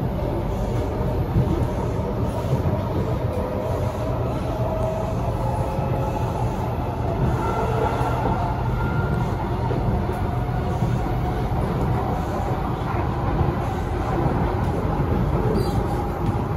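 Cabin running noise of an SMRT C751B (Kawasaki & Nippon Sharyo) metro train under way: a steady low rumble of wheels on rail, with a faint whine that drifts slowly in pitch.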